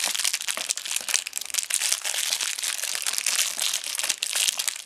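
Clear plastic packet of dog chews crinkling and rustling as it is handled and opened by hand, a dense run of small crackles.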